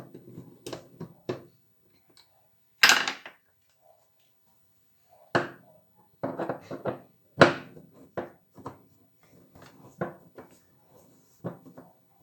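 Tools and metal parts of a washing machine being handled: a run of irregular knocks and clinks, the two loudest about three seconds in and again about seven and a half seconds in.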